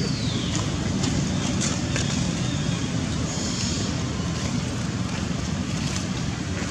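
Steady low outdoor background rumble, even in level throughout, with a few faint clicks and a short high falling squeak in the first second.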